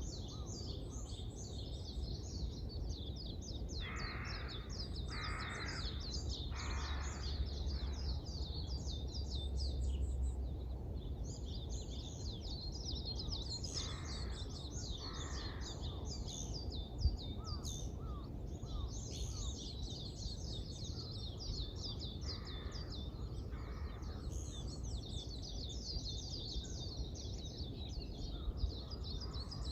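Many small birds chirping densely and continuously at dawn, with a crow cawing three times in short runs of two or three caws. A steady low rumble of background noise runs beneath.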